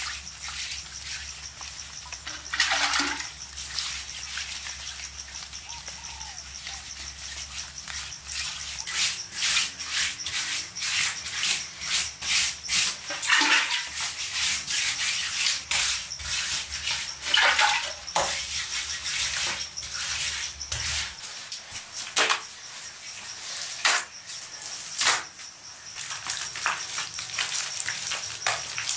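Bare hands smoothing and patting wet mud plaster on a clay wall and floor: irregular wet slaps and rubbing strokes that come thicker from about nine seconds in.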